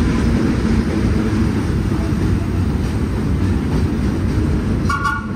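Vintage New York City Subway train rolling past on an elevated station track: a loud, steady low rumble of steel wheels on rail. A short high tone sounds briefly near the end.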